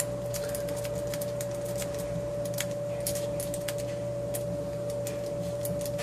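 Metal lock pick working the pins inside an Ace 50mm padlock's keyway under a tension wrench, making irregular light clicks and scrapes. A steady hum runs underneath.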